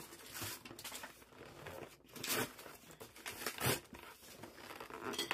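Packaging of a boxed trading-card collection being torn open and crinkled, with three louder short rips amid steady rustling.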